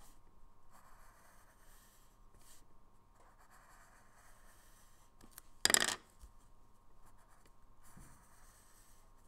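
Pen strokes scratching faintly on paper during sketching, in short repeated runs. About six seconds in there is a brief loud clatter as the pen is swapped for a coloured pencil, and light pencil strokes follow near the end.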